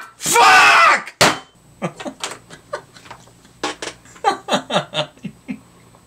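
A man laughing: a loud, drawn-out vocal outburst of about a second near the start, then a run of short bursts of laughter that trail off about half a second before the end.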